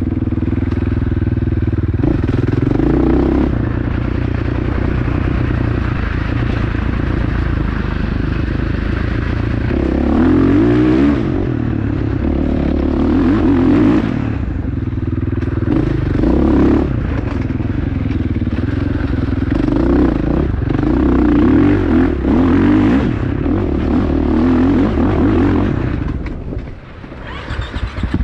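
Motorcycle engine on a forest trail ride, revving up and easing off over and over as the throttle is worked, with a brief drop off the throttle near the end.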